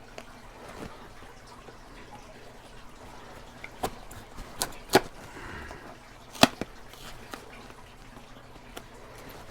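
Sharp knocks and taps from working open a tightly taped cardboard shipping box, a handful of them in the middle, the two loudest about a second and a half apart, with a brief scraping rustle between them.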